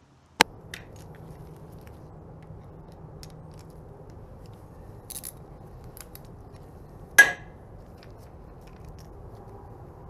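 Small metal handling clicks from hand tools at the steel rake housing, with one sharp metallic clink and a brief ring about seven seconds in, over a steady low shop hum.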